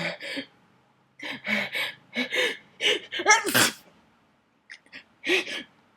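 A person's sneezing fit set off by attic dust: a rapid run of sharp gasping in-breaths and sneezes, several in a row, the loudest a little past the middle.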